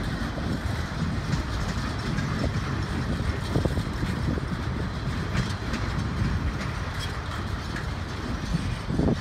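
Freight cars of a welded rail train, flatcars loaded with long ribbon rail, rolling past on the track: a steady rumble of wheels on rail with scattered short clicks.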